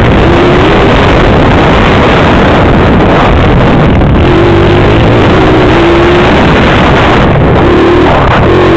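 Pit bike engine running hard under the rider, its pitch rising and falling as the throttle is worked. Heavy wind noise is blowing over the helmet-camera microphone.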